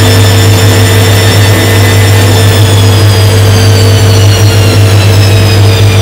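Front-loading washing machine running, with a loud steady low hum and a high motor whine that slowly falls in pitch.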